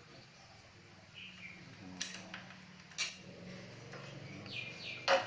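Sharp clicks and knocks of hands working at the radiator overflow tank and its fittings on a Honda VT 250F: three distinct clicks about a second or two apart, the loudest near the end.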